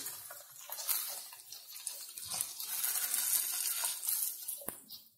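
Diced potatoes sizzling in oil in a coated frying pan while a silicone spatula scrapes and turns them: a steady frying hiss with short scrapes and stirring strokes, fading near the end.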